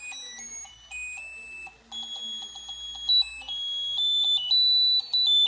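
Electronic Santa Claus novelty sounding a tinny string of high-pitched electronic beeps. The beeps jump from note to note like a garbled sound-chip tune, with a faint regular ticking underneath, and grow louder about halfway through.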